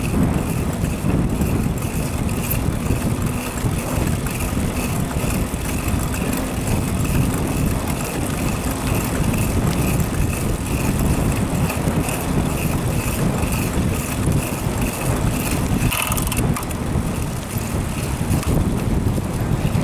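Wind rushing over the microphone and rolling noise of a bicycle being ridden at a steady pace, with a faint high tick repeating about twice a second. A brief clatter comes about sixteen seconds in.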